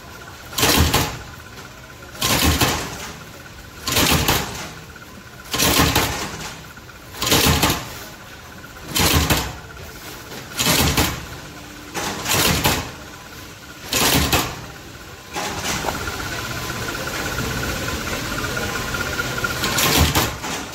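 Flywheel-driven power press cutting slipper soles out of a foam sheet, stamping about once every second and a half, nine strokes in a row. From about fifteen seconds in, the strokes stop and a steady running noise with a thin whine takes over.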